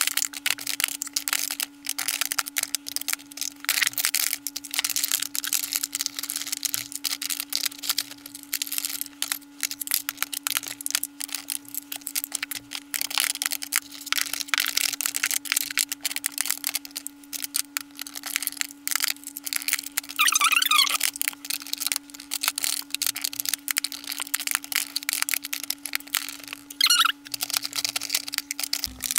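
Plastic makeup compacts and palettes clicking and clacking against one another and against a clear acrylic drawer organiser as they are moved around and slotted in, irregular and continuous, over a steady low hum.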